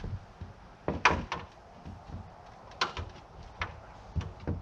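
A hammer knocking on a T1-11 plywood siding panel as it is fitted to the wall: about six irregular knocks, the loudest about a second in.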